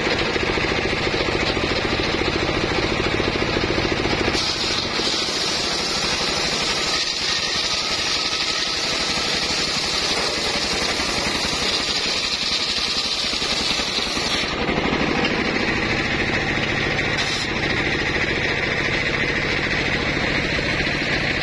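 Homemade circular sawmill running steadily. From about four seconds in to about fourteen seconds the sound turns harsher and hissier, as the blade cuts through timber, then goes back to the plain running sound.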